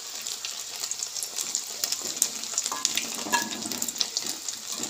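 Chicken butterflies, chicken pieces on potato slices, sizzling and crackling steadily in hot oil in an aluminium kadai. A metal spatula clinks briefly against the pan a couple of times about three seconds in as the pieces are lifted out.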